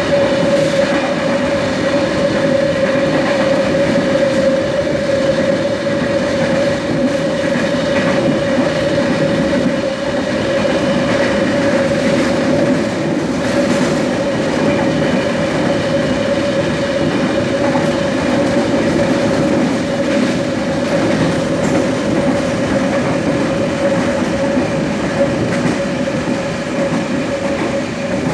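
Trensurb Série 100 Hitachi electric train's traction motors roaring loudly, heard from aboard the moving train. A steady high hum holds one pitch throughout over the rumble of wheels on track, with a few faint knocks.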